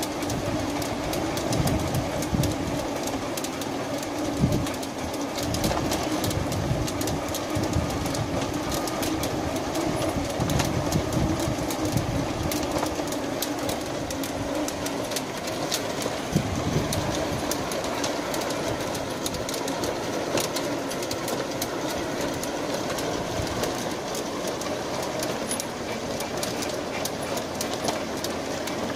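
Slatted dog treadmill running steadily under a pit bull's trot: a constant rolling hum with a rapid, continuous clatter of the slats.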